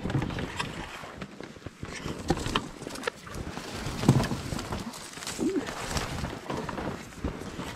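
Footsteps crunching through deep snow, with twigs and snowy branches brushing and scraping against clothing in irregular crunches and scrapes.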